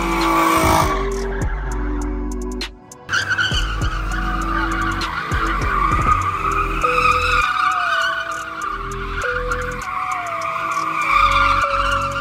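Sedans drifting in tight donuts, tyres squealing against the tarmac under engine revs, with a sharp break about three seconds in. Music plays underneath.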